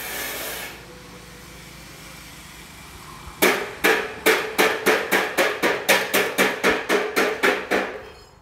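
A hammer striking metal in a steady run of about fourteen ringing blows, roughly three a second, starting about three seconds in. Before that, a steady hiss fades out within the first second.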